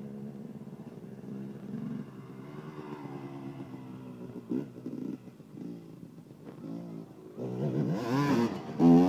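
Two-stroke dirt bike engine running on a motocross track, fairly steady at first with a few short blips of throttle mid-way, then revving up and down loudly near the end as the bike passes close.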